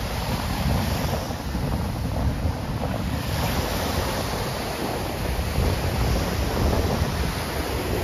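Sea surf breaking and washing up a sandy shore, with wind buffeting the microphone in a steady low rumble.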